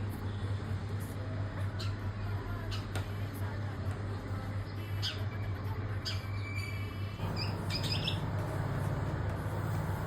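Birds chirping: short scattered calls, with a quick run of repeated notes about six and a half seconds in. Under them a steady low hum runs throughout and gets louder about seven seconds in.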